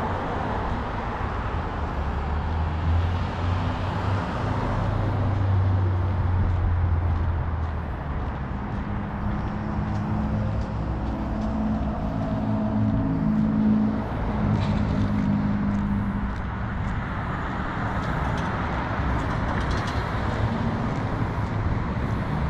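Street traffic: motor vehicles passing, with a low engine rumble and, for several seconds in the middle, a steady engine hum.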